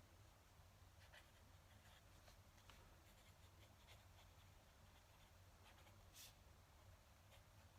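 Fountain pen nib scratching faintly on paper in short, irregular strokes as words are written, with one sharper scratch about six seconds in.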